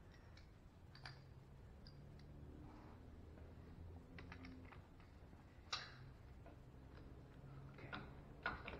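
Faint scattered clicks and taps of metal tools over a low hum, as a socket on a drill's wobble extension is fitted to a pump drive under a car. There is one click about a second in, a sharper one near six seconds, and a few quick ones near the end.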